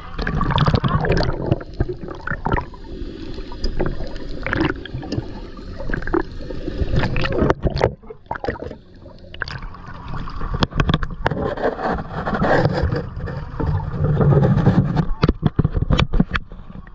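Seawater sloshing and splashing around an action camera as it dips in and out of the water, with muffled underwater rushing and many short clicks and knocks.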